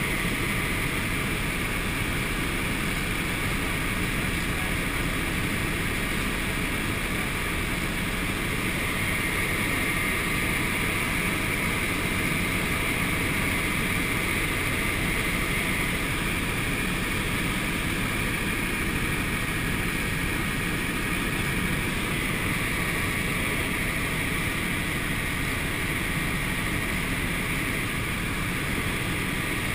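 Helicopter cabin noise in cruising flight: the engine and rotors running as a steady drone with a steady high whine over it.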